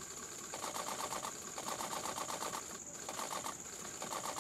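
Insects calling: a steady high-pitched buzz, with rapidly pulsed trills that come in bursts of about a second, separated by short pauses.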